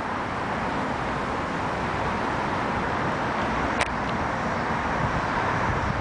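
Steady city street traffic noise, with a single sharp click a little under four seconds in.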